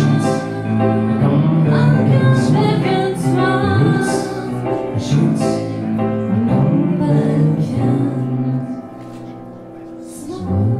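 A woman singing with piano accompaniment, holding long notes. The music drops quieter for a moment near the end.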